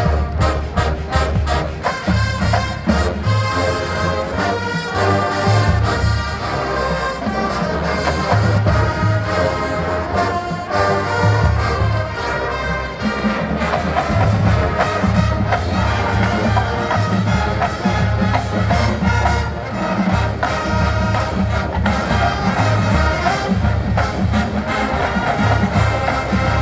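Marching band playing a Motown arrangement, with brass carrying the tune over a steady, pulsing bass beat from the drums and low brass.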